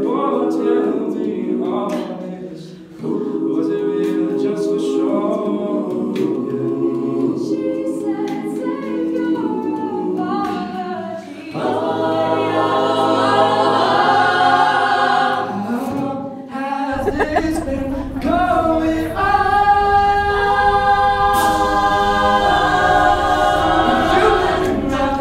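An a cappella vocal group singing layered, held chords with no instruments, used as background music. A low bass part comes in about two-thirds of the way through.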